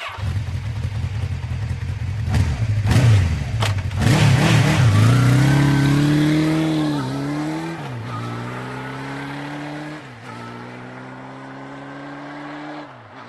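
Motorcycle engine: a rumbling idle with a few quick blips of the throttle, then accelerating hard through the gears. The note climbs and drops back at each of about four gear changes.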